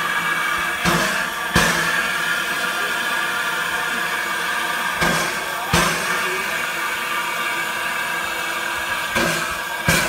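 A small steam tank locomotive standing with steam up, hissing steadily. A pair of sharp knocks, about a second apart, comes three times, roughly every four seconds.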